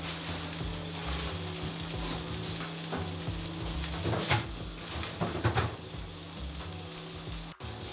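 Salmon fillets sizzling steadily as they fry in their own fat in a non-stick pan, moved with a wooden spatula. A few sharp knocks and clatters about four to five and a half seconds in.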